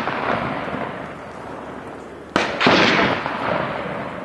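Gunshots fired from a boat. A shot fired just before fades out at the start, and another goes off about two and a half seconds in: a sharp crack, then a louder boom that rolls away slowly.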